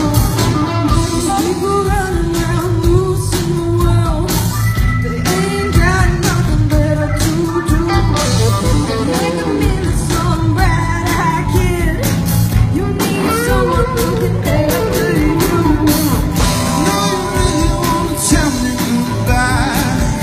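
Live rock band playing: a woman singing lead over guitars, bass and drums, with a steady drum beat.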